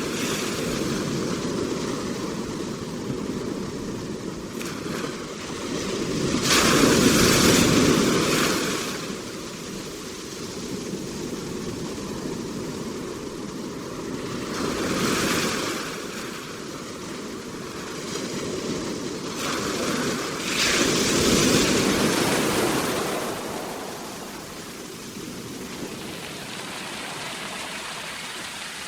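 Ocean waves breaking and washing on a shore: a steady rush of surf with three louder waves surging and falling away, about a quarter, half and three quarters of the way through.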